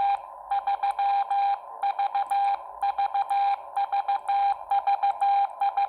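Morse code sidetone from a Xiegu X6100 transceiver in CW training mode, keyed with a Bencher BY-1 iambic paddle: a steady single-pitch beep sent as quick runs of dits and dahs in letter groups with short gaps between them, with faint clicks alongside.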